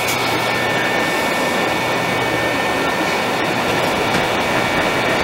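Hot air rework station running steadily: a loud even rush of blown air with a faint high whine.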